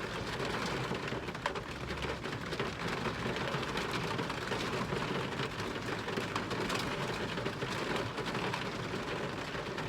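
Heavy rain pouring down: a steady hiss dotted with many small drop ticks.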